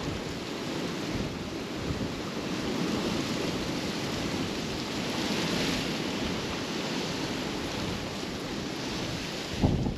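Strong wind buffeting the microphone: a steady rushing noise that swells a little midway, with a brief low thump near the end.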